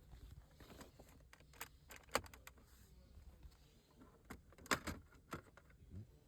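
Faint, scattered plastic clicks and taps from trim tools prying an outer trim panel off a car's rear HVAC vent panel, with a few sharper clicks about two seconds in and a cluster near five seconds.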